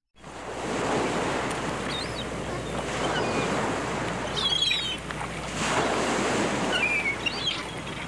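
Sea surf breaking on a shingle beach: a steady rushing wash of waves with wind, swelling about six seconds in. A few short bird chirps come over it.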